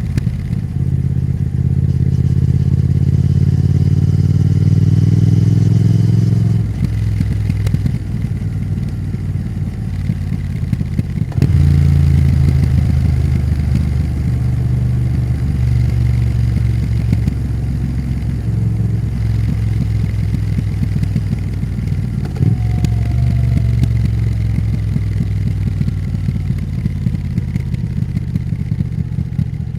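Triumph Thruxton RS parallel-twin engine under way, rising in pitch through the first six seconds, then dropping off. It picks up sharply again about eleven seconds in and runs at fairly steady revs for the rest.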